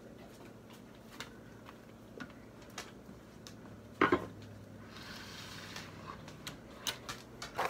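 Scattered light clicks and knocks of household items being handled, with one louder clatter about four seconds in followed by a short rustling hiss.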